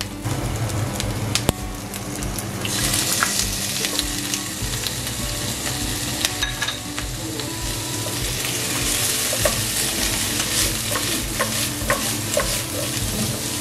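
Onion, bell pepper and pineapple chunks sizzling in hot oil in a nonstick pan while a spatula stirs them, with scattered clicks and scrapes of the spatula against the pan. The sizzle gets louder and brighter about three seconds in, as the pineapple chunks go into the pan.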